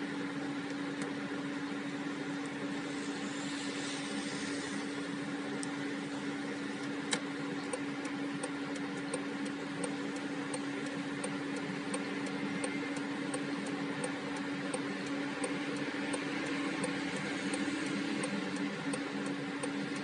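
Tofaş Doğan SLX engine idling steadily while the car stands still, heard from inside the cabin. From about a third of the way in, a light regular ticking, about two a second, runs alongside it.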